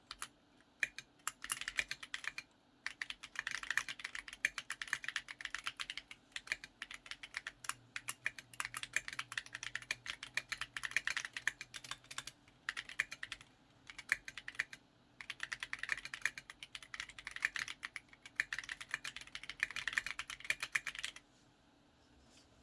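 Typing on a mechanical keyboard with Salmon tactile switches, a rapid run of key clacks in bursts broken by short pauses. The typing stops shortly before the end.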